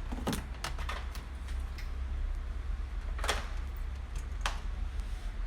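A few sharp clicks and light knocks at uneven intervals, from a laptop being handled and worked on for an SSD replacement, over a low steady hum.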